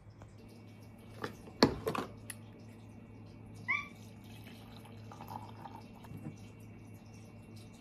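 Hot coffee poured from a carafe into a ceramic mug, a faint trickle, preceded by a few sharp clicks and knocks and a brief high-pitched sound.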